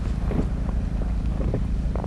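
An inflatable fishing boat's outboard motor running steadily, a low drone as the boat moves to a new spot, with wind buffeting the microphone.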